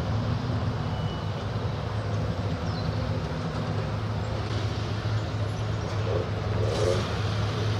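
A classic car's engine running steadily at low revs, a low even hum with no revving.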